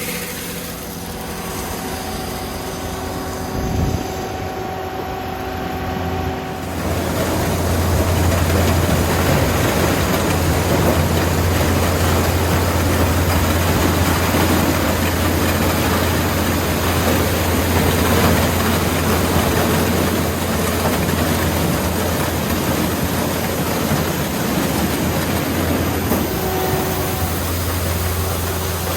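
Yanmar YH700M combine harvester running. A steady low machine hum grows much louder and fuller about seven seconds in, then holds steady.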